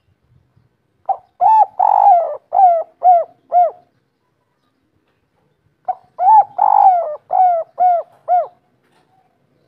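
Spotted dove cooing two song phrases, a few seconds apart. Each phrase opens with short notes and a longer rolling coo, then ends in three clipped coos: the 'kuk 3' (three-ending) song type.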